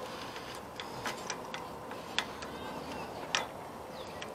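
A handful of light clicks and taps at uneven spacing, from small carburetor linkage parts and tools being handled on a riding mower's engine. The sharpest click comes about a second before the end.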